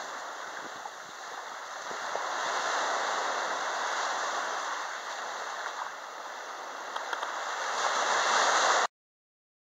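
Small waves breaking and washing up over a sandy beach at the water's edge: a steady surf hiss that swells twice as waves come in, the second swell the loudest. It cuts off abruptly near the end.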